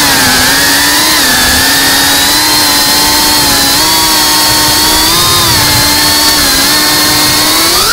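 Geprc Cinelog 35 FPV drone's brushless motors and propellers whining at a nearly steady throttle, the pitch wavering slightly, then rising sharply right at the end as the throttle is punched.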